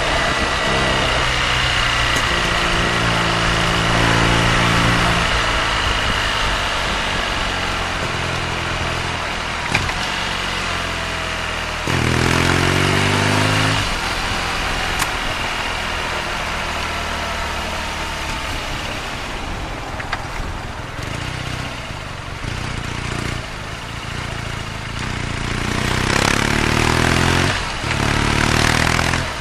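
BMW R nineT's flat-twin boxer engine under way, pulling up in pitch as it accelerates in the first few seconds, again about twelve seconds in and near the end, with a quieter, lower-pitched stretch in between.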